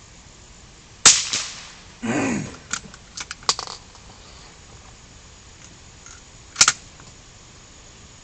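Two gunshots during ammunition group testing, about five and a half seconds apart. The first, about a second in, has a fading tail. A short falling swish and a few small clicks come between the shots.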